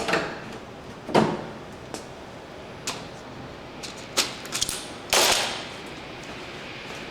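Clecos being pulled out of the winglet skin: an irregular series of clicks and clatters, the loudest about a second in and about five seconds in.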